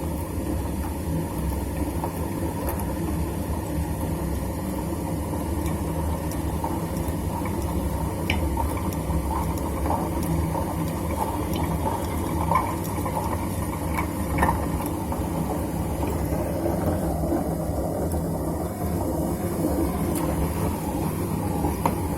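Super General SGW16100N washing machine running with a steady low rumble and a few faint clicks; its bearing has failed, with all the balls fallen out.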